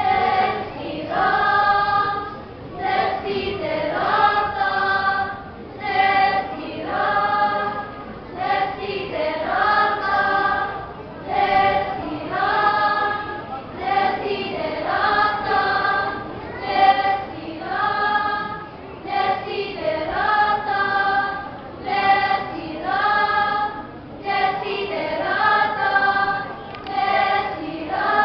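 A choir of school children singing together in short, regular phrases with brief breaths between them.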